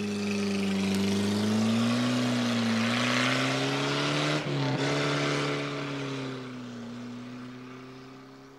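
An old estate car's engine running as the car pulls away and drives off, its note wavering a little in pitch, with a brief dip about four and a half seconds in. It then fades away over the last few seconds.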